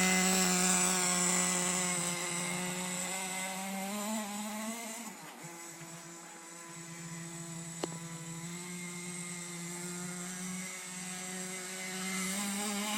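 Small nitro engine of a Hot Bodies Lightning 10 RC buggy running at steady, high revs, growing fainter for a few seconds in the middle and then louder again. A single sharp click about eight seconds in.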